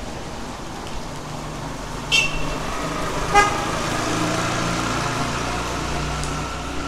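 Steady rain with a motor vehicle's engine droning from about three and a half seconds in, and a short horn toot just as it starts.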